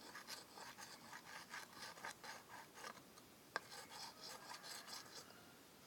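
Knife being sharpened: the blade scraped back and forth in quick, faint rasping strokes, about four a second, with one sharp click a little past halfway, the strokes growing weaker after it.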